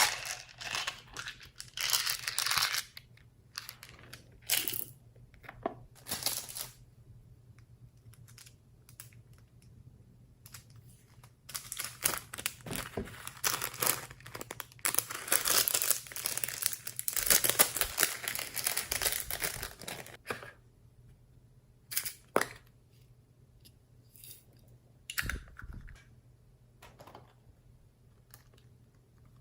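Slime being squeezed, stretched and mixed by hand, giving irregular crackling and squelching pops. The crackles come in short scattered bursts, then run thick and fast for several seconds in the middle, then thin out again.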